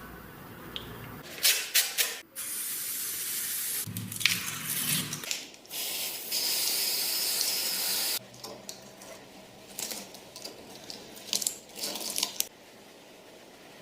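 Spray hissing in two long bursts of about two seconds each, with short clicks and knocks of handling before, between and after them.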